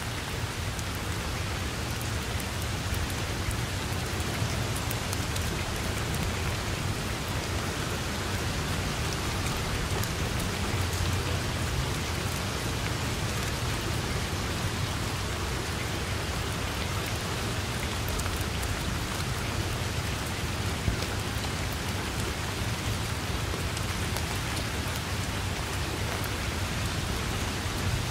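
Steady rain falling on grass and trees, an even hiss with scattered drop ticks over a low rumble.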